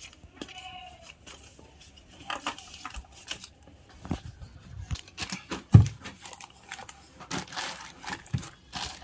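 Mixer-grinder packaging being handled: plastic and paper crinkling and rustling with scattered knocks, and one heavier thump about six seconds in.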